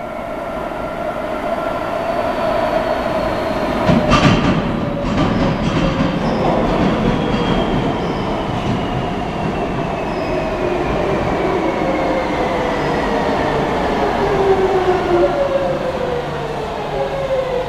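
Madrid Metro 3000-series train arriving at a station, growing louder as it approaches, with a sharp knock from the wheels about four seconds in. A whine falls steadily in pitch as the train brakes along the platform toward a stop.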